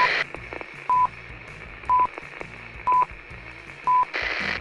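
Countdown beeps: five short, identical high-pitched beeps one second apart, one for each number of a 5-to-1 countdown, over a faint low background. Near the end a burst of static hiss breaks in.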